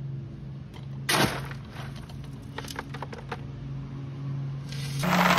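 A steel shovel scrapes into crushed gravel about a second in, followed by small stones clicking and clattering as they fall off the blade, over a steady low hum. Near the end a much louder, steady rush of gravel begins.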